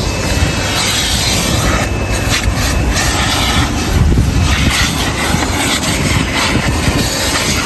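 Powerful coin-operated car-wash vacuum running steadily, its hose sucking over cloth car-seat upholstery, with the nozzle rubbing and bumping on the seat now and then.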